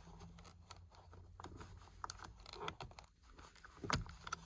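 Faint clicks and plastic handling sounds of a steering-wheel wiring connector being pressed and worked loose, with a sharper click near the end as it lets go.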